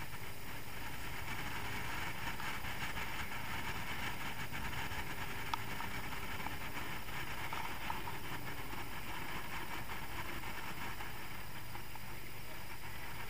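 Speedboat under way, its engine running steadily at speed with the rush of water on the hull, heard from inside the enclosed cabin. Two faint knocks, about five and a half and eight seconds in.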